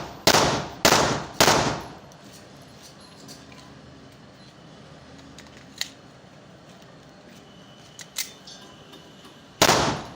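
A gun test-fired in quick strings: three shots about half a second apart, each with a short echoing tail. A lull of about eight seconds follows with a couple of faint clicks, then another shot near the end opens the next string.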